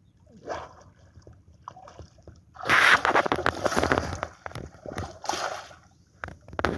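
Water splashing and sloshing in irregular bursts, with sharp clicks and knocks mixed in. The loudest stretch comes about three seconds in, and another starts near the end.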